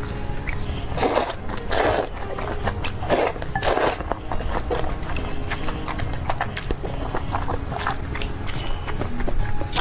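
A person eating close to the microphone: four short, noisy slurps in the first four seconds, then quieter mouth and chewing sounds.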